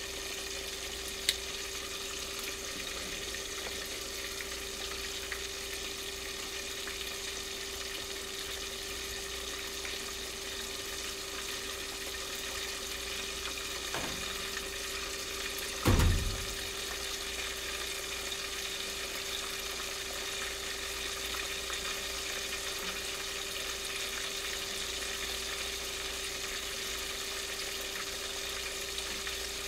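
Hot cooking oil sizzling steadily on the stove, over a steady low hum. A sharp click comes about a second in, and a short dull thump about 16 seconds in is the loudest sound.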